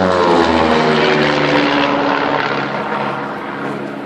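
Aircraft flying low past the spectators, its engine note dropping in pitch as it goes by, then settling into a steady, slowly fading drone.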